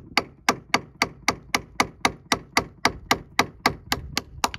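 Hammer blows on a flat chisel wedged into a sailboat's bronze stern tube (shaft log), driving out the old corroded fitting. The strikes are sharp and evenly spaced, about four a second.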